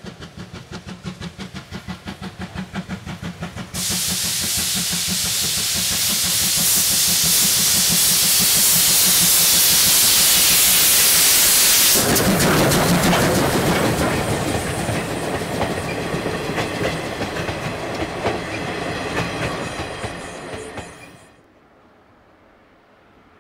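C12-class steam tank locomotive working hard with its train: a regular beat of exhaust chuffs. About four seconds in, a loud steady hiss of steam starts over the beat and stops abruptly about halfway, as the engine passes close. The wheels, rods and carriages then clatter past and fade, cutting off near the end.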